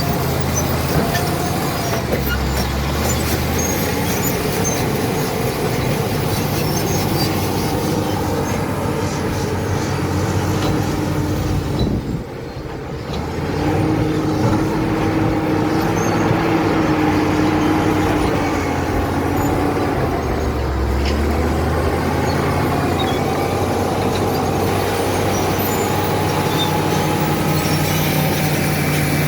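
Caterpillar D7 bulldozer's diesel engine running steadily as the machine works, its pitch shifting. There is a short drop in level about twelve seconds in, then a higher whine for several seconds.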